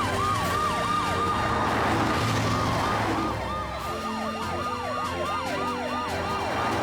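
Several overlapping emergency-vehicle sirens from cartoon rescue cars, wailing in fast repeated up-and-down sweeps. A rushing whoosh swells about two seconds in.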